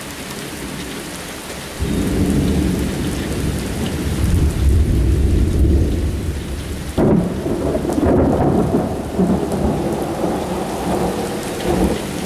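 Heavy rain falling steadily, then about two seconds in a loud rolling thunder rumble from a close lightning strike sets in. A second sudden crack comes about seven seconds in, and the rumble goes on under the rain.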